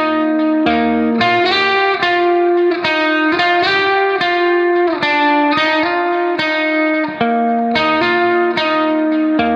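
Background music: a plucked-string melody of short notes following one another every half second or so.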